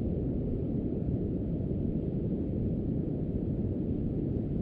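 Surf breaking offshore: a steady, low, even roar of waves with no distinct crashes.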